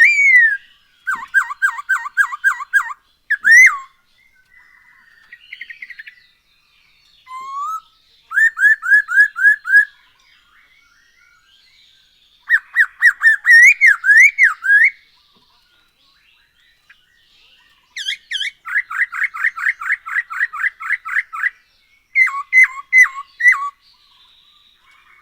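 Poksay hongkong laughingthrush singing loudly in bouts of rapid, repeated whistled notes, about five or six a second, with brief pauses between phrases.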